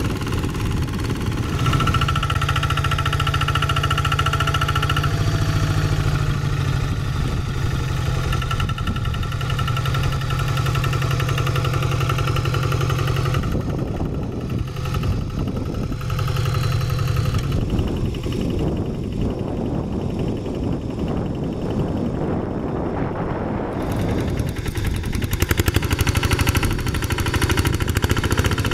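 Diesel engine of a two-wheel hand tractor running steadily under load while its rotary tiller works the soil. The engine note shifts abruptly several times.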